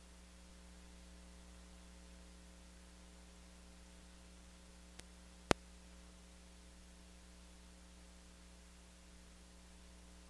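Steady low electrical hum with faint hiss from a recording that picked up no live sound, a technical fault. About halfway through come two sharp clicks, a small one and then a much louder one half a second later.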